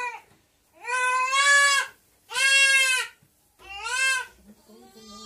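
A goat kid bleating loudly over and over in high, drawn-out cries. There are about four long calls a little over a second apart, and a lower, fainter one near the end.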